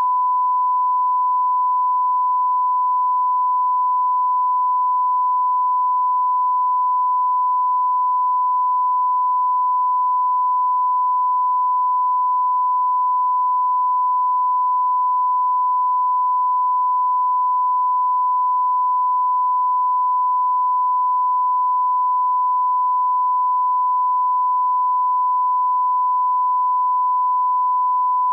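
Television 'no signal' test tone: a single steady sine-wave beep at about 1 kHz, held unbroken at constant level.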